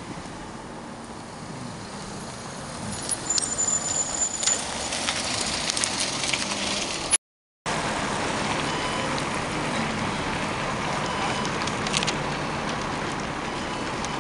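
Outdoor street traffic noise: a steady hiss of passing cars, with a brief high squeal about three to four seconds in. Halfway through the sound cuts out for a moment, then the steady traffic noise carries on.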